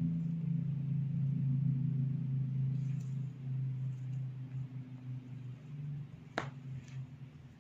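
A low steady hum that fades out after about six seconds, then one sharp crack about six and a half seconds in and a fainter one just after it: the pop of a hair-cracking tug or neck-cracking manipulation during a head massage.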